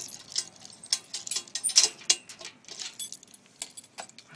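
Small metal pieces jingling and clinking in an irregular run of quick, bright clinks, loudest a little under two seconds in.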